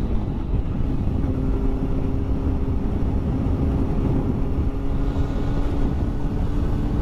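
Motorcycle cruising at a steady speed: the engine's even hum holding one pitch under a heavy rumble of wind on the microphone.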